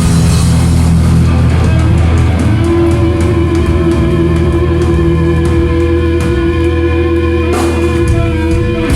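Live heavy metal band playing loud, with distorted electric guitar, bass and drums. A guitar note rings out and is held from a couple of seconds in until near the end, over drum and cymbal hits.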